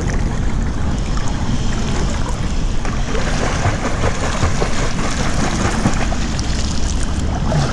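Pool water splashing from a swimmer's small flutter kicks as he glides face-down in the arrow position, the splashing thickening about three seconds in, over a steady low rumble.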